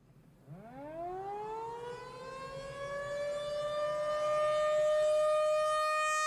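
Civil defense siren winding up: its single wailing tone climbs steeply from low about half a second in, then levels off and holds a steady high pitch.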